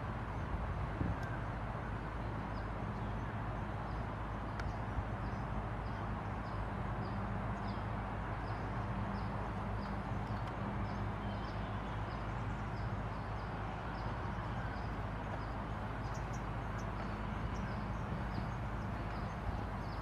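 Outdoor ambience: a steady rushing noise and low hum, with a faint short high chirp repeating about twice a second.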